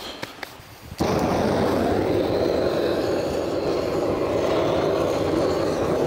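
Handheld gas torch lighting firewood: a few sharp clicks, then the burner catches about a second in and burns with a loud, steady rushing noise.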